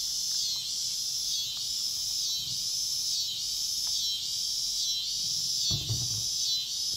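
Cicadas droning in a steady, high chorus that pulses a little faster than once a second, with a few faint clicks.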